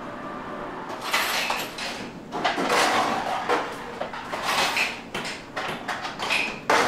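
Steady street hum for about the first second, then the irregular clatter and rustle of a busy restaurant dining room, with dishes, utensils and fittings being handled.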